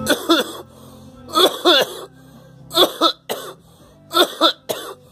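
Coughing: four bouts of short voiced coughs, mostly two at a time, about every second and a half.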